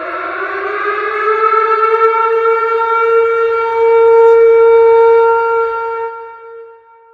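Tornado warning siren sounding one long wail. It rises in pitch over the first couple of seconds, holds steady, then drops off about six seconds in, leaving a fading tone.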